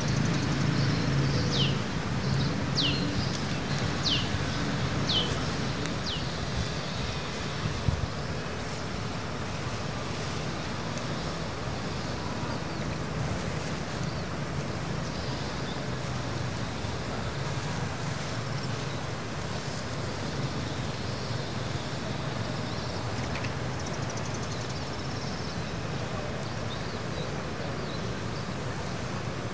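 Steady outdoor rushing noise with a low hum under it. Five short falling whistles come about a second apart in the first few seconds.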